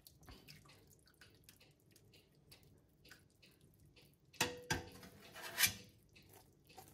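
Melted beef fat dripping in faint small drips from a slotted metal spoon as a braised beef cheek is lifted out of the slow cooker. Then, about four and a half seconds in, a short clatter with a brief ring as the metal spoon knocks against the perforated stainless steel gastronorm pan while the meat is set down.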